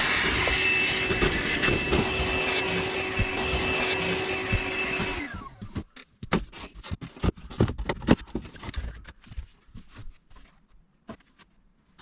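A small electric motor runs steadily with a constant whine, then shuts off about five seconds in. Light clicks and knocks of handling follow.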